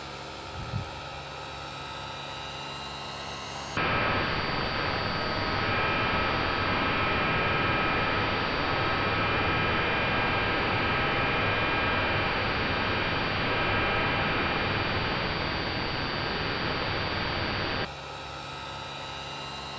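Radio-controlled scale Westland Lynx model helicopter in flight: a steady rotor and drive drone. About four seconds in, the sound jumps to a much louder, closer onboard recording of the rotors and drive, with steady high whining tones over dense noise. It drops back to the quieter, more distant sound near the end, and there is one short knock about a second in.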